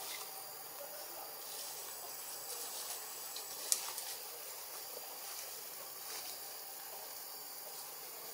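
Steady high-pitched drone of forest insects with a constant hiss, and one short sharp click a little past the middle.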